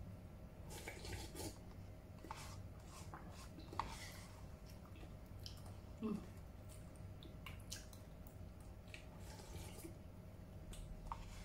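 A small plastic spoon scraping and clicking against the inside of a paper cup, scooping out soft food, with faint wet eating sounds. Soft scattered clicks over a steady faint hum.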